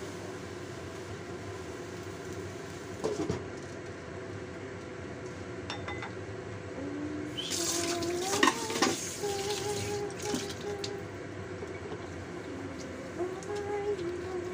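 Winter melon sizzling in a stainless steel wok as a wooden spatula stirs it, with a knock about 3 s in. About halfway through comes a louder burst of scraping and a clink as the glass lid is set on the wok; the frying then goes on under the lid.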